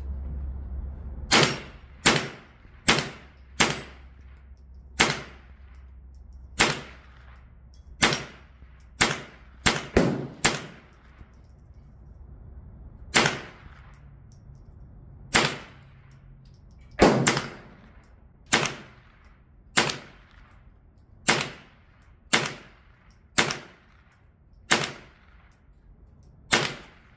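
.22LR rifle firing about twenty shots at steel targets at an uneven pace, some in quick pairs, each shot followed by a short ring of steel.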